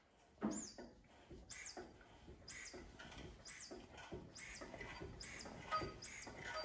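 Workshop press being worked to push a new wheel bearing into a Porsche 996 front wheel carrier: a short high squeak with a low knock about once a second, one per stroke, the first the loudest about half a second in.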